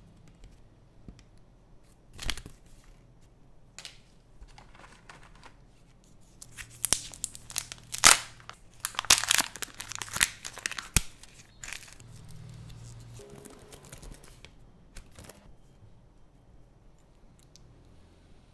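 Plastic wrapping crinkling and tearing as a Kinder Joy toy capsule is peeled open by hand. The crackling is densest and loudest in the middle, with scattered rustles and light clicks of paper and plastic being handled before and after.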